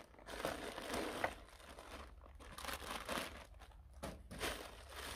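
Packing material crumpling and rustling as hands dig through a parcel to pull an object out, in several bouts about a second long with short pauses between.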